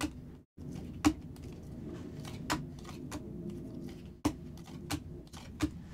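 Panini Donruss Optic football cards being flicked through one by one in the hands, each card sliding off the stack with a sharp click, about six clicks spread over a few seconds, over a low steady room hum.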